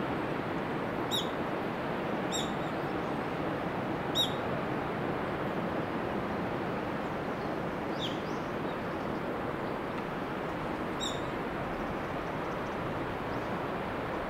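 A bird gives a short, sharp, downward-sliding call five times, a few seconds apart, over a steady rushing background noise.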